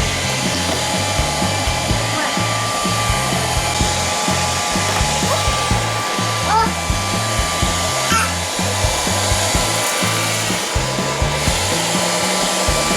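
Gutrend 110 Pet robot vacuum cleaning, its suction fan making a steady whirring rush. Background music with a bass line plays under it, and a few short rising chirps come between about five and eight seconds in.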